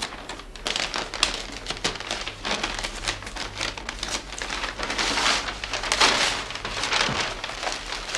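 Brown wrapping paper being torn open and rustled by hand, in an irregular string of crackling rips, with crumpled newspaper packing rustling near the end.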